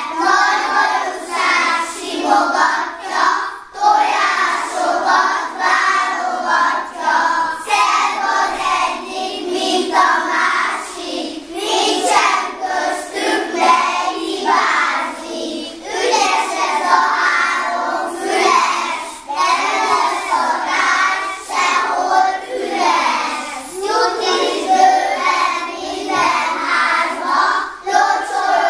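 A group of young children singing a song together, in phrases of a few seconds broken by short pauses for breath.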